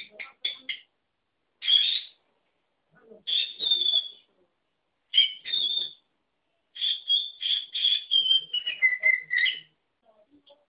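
Lutino peach-faced lovebird calling in about five high-pitched phrases, mimicking the words "Leti, ven" to call for its absent keeper. The last and longest phrase drops in pitch near its end.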